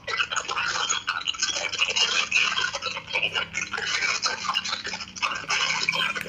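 Harsh, fluctuating buzzing static like a radio signal: the fault noise from the OPPO F3 Plus's call audio, the noise its callers hear. It cuts off suddenly near the end.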